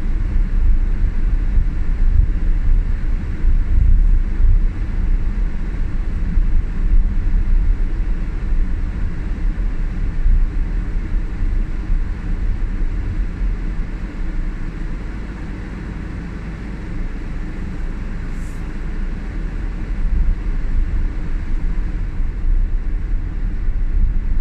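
Steady low rumble of a car driving on a snow-covered road, heard from inside the cabin. It eases a little about two-thirds of the way through, then picks up again.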